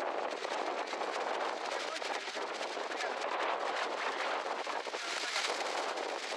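Wind buffeting the microphone: a steady rushing noise full of fine crackles.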